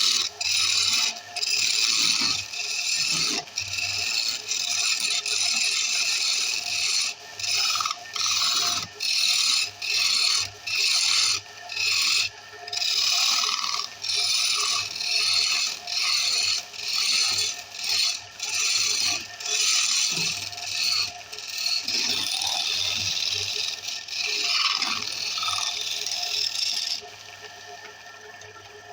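Wood being scraped or cut on a spinning wood lathe in quick repeated strokes, about one a second, over a steady low hum. The strokes stop near the end.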